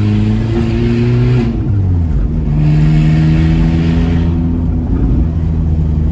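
Volkswagen Saveiro pickup's engine heard from inside the cabin while driving. The revs climb, then fall at a gear change about one and a half seconds in, and drop again at a second shift about five seconds in.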